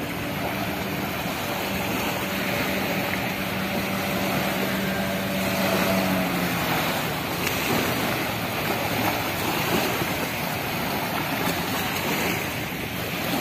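Small waves washing onto the shore in a steady wash of surf, under the steady hum of a small motorboat's engine, which drops away a little past halfway.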